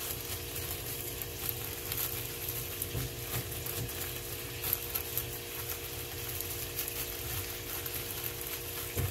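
A plastic zip-top bag of almond flour and crushed crackers being squeezed and kneaded by hand, the plastic crinkling in scattered light crackles, over a steady sizzle of food frying in a pan.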